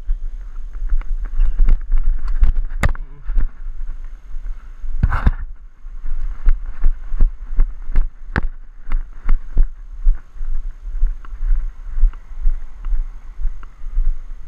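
Tennis shoes pounding and scuffing on a hard court as the player runs, with several sharp knocks of a tennis ball off racket strings and court, over a steady low rumble. The loudest knock comes about three seconds in, a longer noisy scrape about five seconds in, then a run of quick, even footfalls.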